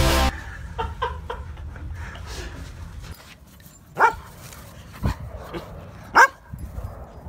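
Poodle barking. A few small yips come about a second in, then three loud single barks about a second apart in the second half.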